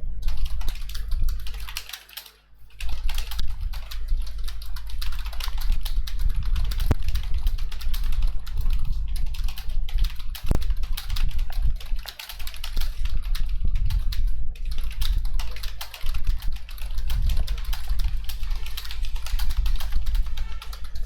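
Fast typing on a computer keyboard during a typing speed test: a continuous rapid patter of key clicks, with a short pause about two seconds in and brief lulls near twelve and sixteen seconds. A steady low hum runs underneath.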